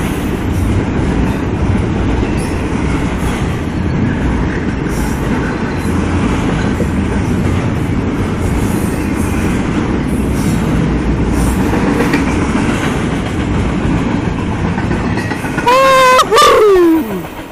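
Norfolk Southern double-stack intermodal train's cars rumbling steadily past a grade crossing as the last of the train goes by. Near the end a loud voice calls out briefly, its pitch falling.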